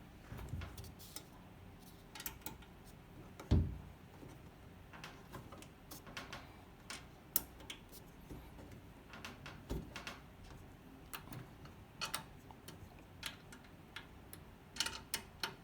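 Hex wrench turning screws loose on an automatic writing machine: scattered small clicks and taps of tool and metal, with one louder knock about three and a half seconds in.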